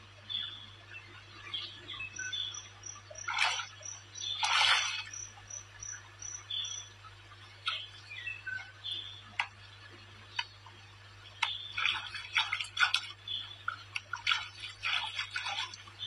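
Water splashing and sloshing irregularly as a person wades through a shallow river pool, with busier splashing in the second half. A run of short high chirps, about two a second, comes in the first half.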